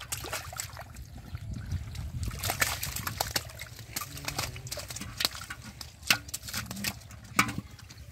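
Shallow muddy water sloshing and splashing as fish are grabbed by hand and put into a metal pot of water, with a few sharp splashes.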